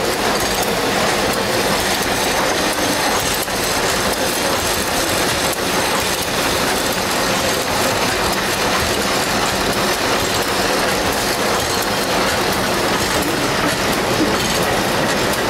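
Mechanised korai grass mat loom running, a steady rapid metallic clatter from its weaving mechanism.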